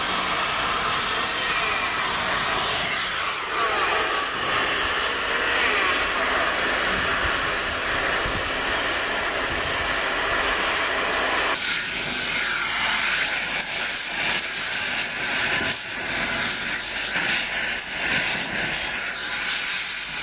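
Hose-fed gas blowtorch flame hissing steadily as it burns old paint off steel panels. About halfway through, the sound thins, losing its lower part.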